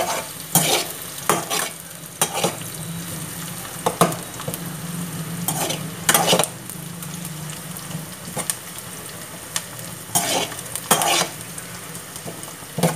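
Sliced onions sizzling in hot oil in a kadhai, with a metal perforated ladle scraping and stirring them in irregular strokes over the steady sizzle.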